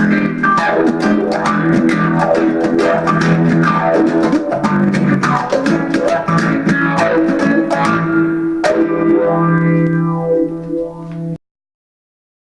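Electric guitar played through a phaser clone and a Fuzz Face fuzz clone, giving a funky, fuzzy, phased tone. Quick rhythmic strumming runs for about eight seconds, then a final chord rings out before the sound cuts off abruptly near the end.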